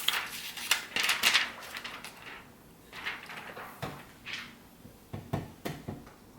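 Hands handling plastic laptop screen parts: irregular crackly rustles and light clicks, with a few sharper knocks in the second half.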